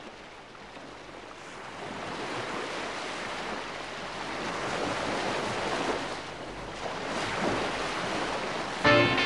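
Sea surf washing in, a steady rushing noise that swells slowly and unevenly. Guitar strums come in just before the end.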